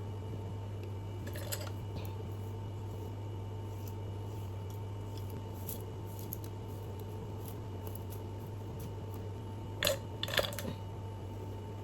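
Steady low hum of room tone, with a few light clicks and rustles and a short cluster of sharper clicks near the end.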